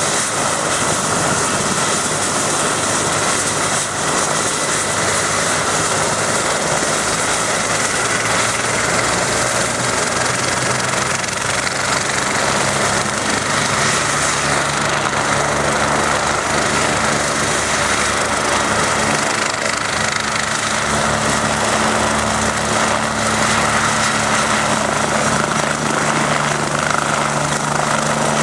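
BK 117 rescue helicopter's twin turbine engines and rotors running at flight power on the ground, a loud steady whine and rotor noise that takes on a deeper low hum from about halfway through. The helicopter lifts off near the end.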